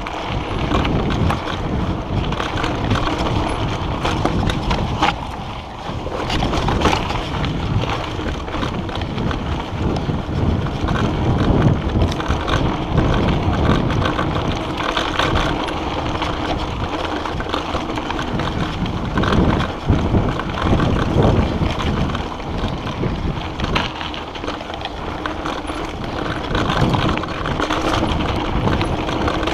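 Mountain bike riding fast down a rough gravel trail: tyres rolling over loose stones, with frequent rattles and knocks from the bike over bumps, under steady wind noise on the microphone.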